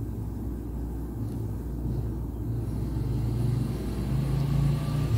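Low droning motor rumble, its hum shifting higher about four seconds in.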